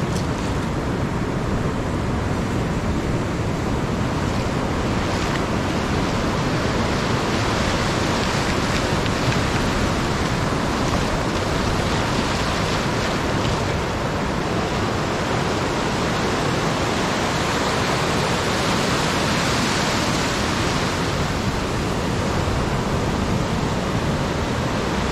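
Ocean surf breaking and washing over shallow sand: a steady rushing noise, with wind buffeting the microphone.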